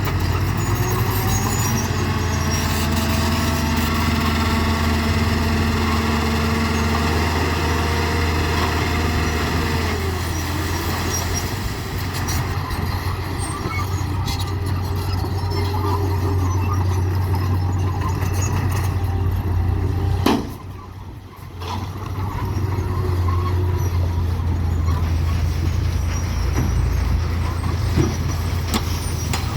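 Dump trucks and a bulldozer working, their engine sound a steady low drone with higher whines above it. One whine slides down in pitch about ten seconds in. The sound dips briefly about twenty seconds in.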